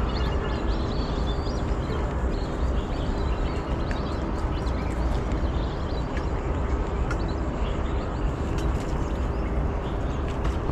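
Steady outdoor background by a pond: a constant low rumble and hiss with a faint steady hum under it, and scattered faint high chirps and ticks.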